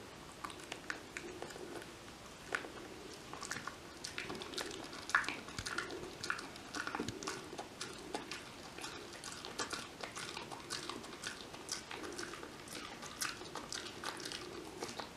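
Kai Ken dog chewing a Dentalife dental chew stick: irregular wet crunching and clicking of teeth on the chew.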